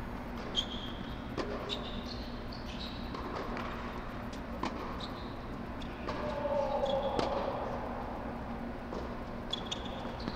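Scattered tennis ball bounces and racket hits with short high shoe squeaks on a hard court, over a steady low hum.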